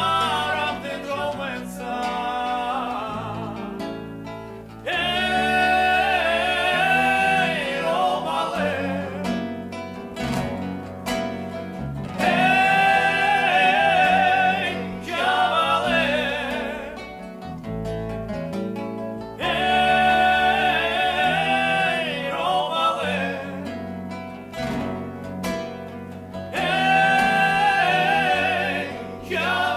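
Male voices singing a song with strummed acoustic guitars and an electric bass; the sung lines come in loudly about every seven seconds, with the guitars carrying on between them.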